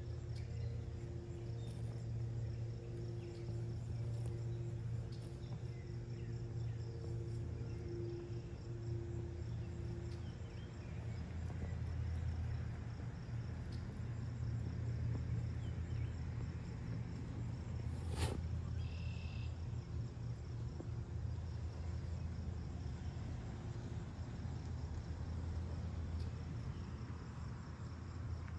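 A bull elk sneezes once, a short sharp blast of air, about two-thirds of the way through. Insects chirp steadily throughout over a low steady rumble.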